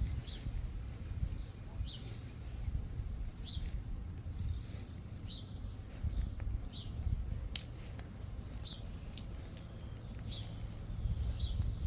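Campfire crackling with a few sharp pops, the loudest a little past halfway, over a steady low rumble. A bird repeats a short high chirp about every second and a half throughout.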